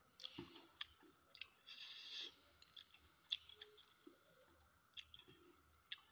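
Faint close-up eating sounds of someone eating rice and prawns by hand: scattered sharp mouth clicks and smacks while chewing, with a short crunchy rustle about two seconds in.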